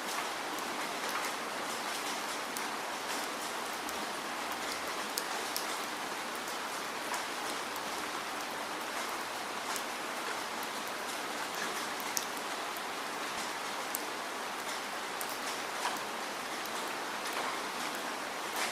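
Steady rainfall: an even hiss of rain with many sharp individual drops ticking on a surface.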